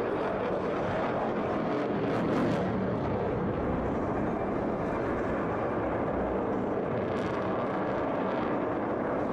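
An F-22 Raptor's twin F119 turbofan engines, heard as steady rushing jet noise from the aircraft flying overhead, swelling slightly about two seconds in.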